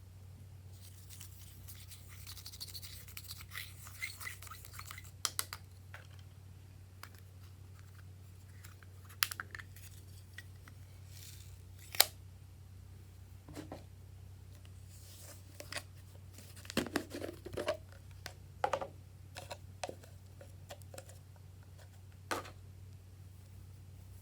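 Hands handling slime-mixing materials: scratchy crinkling and scraping for the first few seconds, then scattered sharp clicks and taps, with a cluster of small crackles a little past the middle, over a low steady hum.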